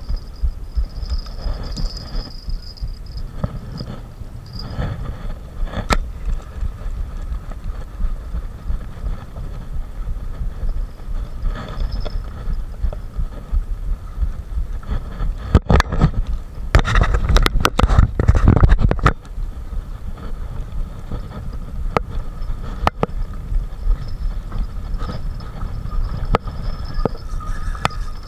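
Spinning reel being cranked to bring in a hooked fish, its handle clicking over a low rumble of handling against the body-worn camera. About halfway through there are a few seconds of louder rubbing and knocking.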